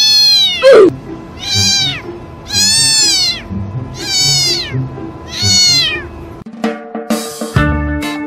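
A cat meowing loudly over and over: a long falling cry, then four drawn-out meows that rise and fall in pitch, each under a second long and about one every 1.3 seconds. Music comes in near the end.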